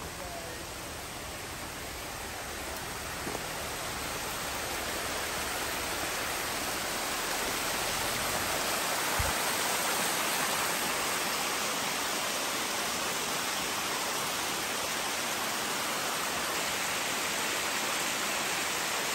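Steady rushing of a mountain creek's running water, growing louder over the first half and then holding level.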